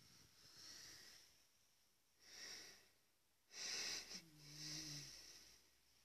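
Domestic cat snoring faintly in its sleep: soft, wheezy breaths about every second and a half, the loudest a little past the middle, which runs on into a short low hum-like tone.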